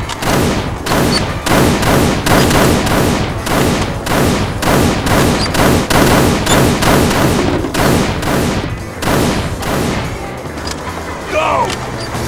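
Pistol fired again and again in a long string of gunshots, about two to three shots a second, stopping about ten seconds in.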